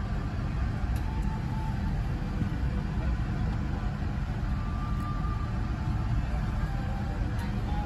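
Steady low rumble of cabin noise inside a Boeing 787 Dreamliner: engine and air-conditioning noise.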